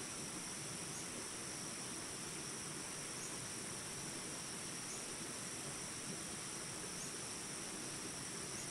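Steady rushing water with a continuous high-pitched trilling of insects, such as crickets, over it.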